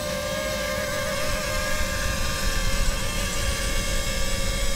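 DJI FPV drone on Master Airscrew Ludicrous propellers hovering close by: a steady multi-tone propeller whine that wavers slightly, over a gusty low rumble of wind. It grows louder as the drone comes in low near the landing pad.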